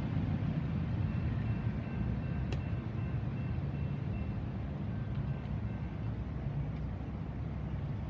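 Low rumble of a freight train moving away from the grade crossing, slowly fading.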